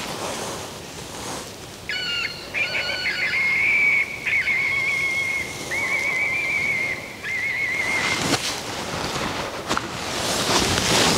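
Electronic fox caller playing a high, wavering squeaking call: a string of squeaks and warbles from about two seconds in to about eight seconds in, used to lure a fox. Wind rushes on the microphone throughout and gusts near the end.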